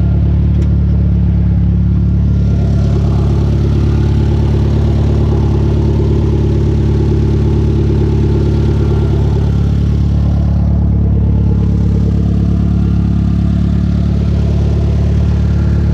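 Chrysler Conquest's turbocharged G54B 2.6-litre four-cylinder engine running steadily, with no sharp revs, while its rich-running, breaking-up fuelling under boost is being tuned.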